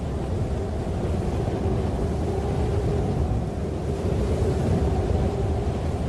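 Storm sound effect: a steady low rush of wind noise with a faint steady tone in it.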